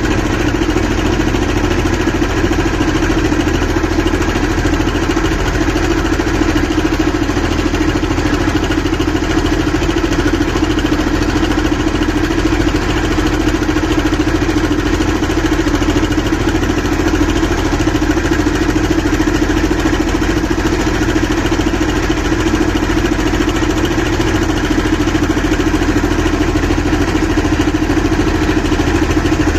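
Small river boat's engine running steadily, one constant note with no change in speed.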